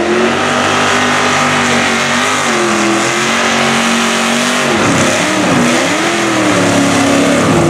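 Supercharged LQ4 V8 of a custom tractor-tired Jeep mud truck running hard under load, pitch fairly steady at first, then revved up and down repeatedly from about five seconds in as it churns through mud.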